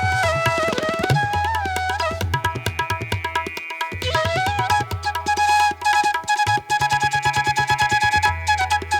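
Background music in an Indian classical style: a melody that slides between notes over a held drone, with a steady rapid tabla-like drum rhythm.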